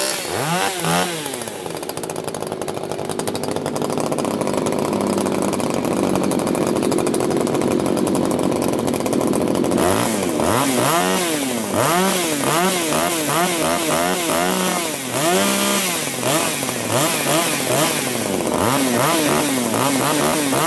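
Husqvarna 339XP two-stroke chainsaw engine revving. After a few quick blips it is held at high revs for about eight seconds, then from about halfway it is blipped again and again, the pitch rising and falling in quick succession.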